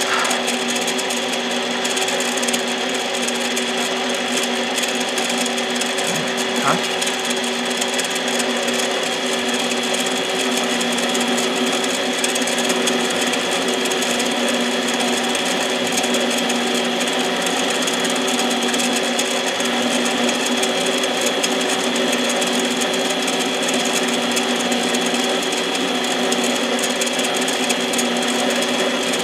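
Harbor Freight 7x10 mini lathe running steadily with a constant whine, its chuck spinning an aluminium Husqvarna 272 chainsaw piston. There is a single light click about six and a half seconds in.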